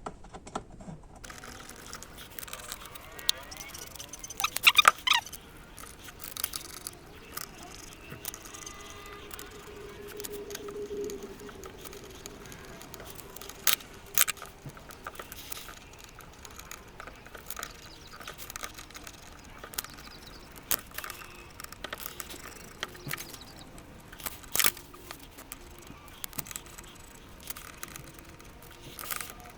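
Small metal parts clicking and tapping against a transmission valve body as it is assembled by hand, in scattered light clicks, with a louder clatter about five seconds in and a few sharper ticks later.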